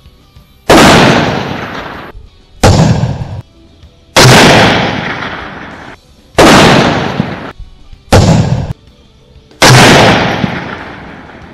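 Six rifle shots from a 6.5 Grendel AR-style rifle, about one and a half to two seconds apart, each a sharp crack followed by a long fading echo; two of the echoes cut off short.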